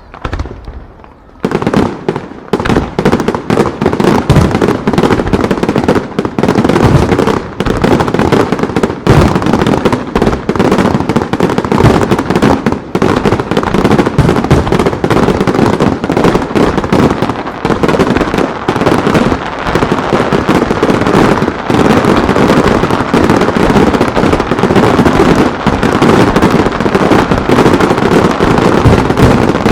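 Aerial fireworks shells bursting in a dense rapid-fire barrage: overlapping booms and crackles with hardly a gap. A few separate bangs open it, and about a second and a half in the barrage sets in and keeps going.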